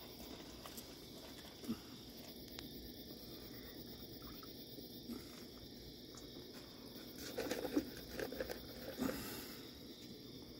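Raccoons eating: scattered clicks and crunching as they chew crackers and cereal, busiest from about seven to nine seconds in. A steady chirring of night insects runs underneath.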